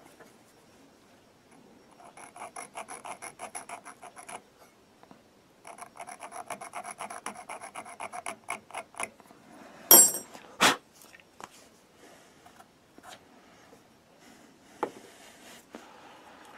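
A steel scriber scratching an alignment mark across the end of a Simms injector pump's throttle shaft and lever: two runs of quick rasping strokes, about six a second. About ten seconds in come two sharp clicks, followed by faint scattered ticks.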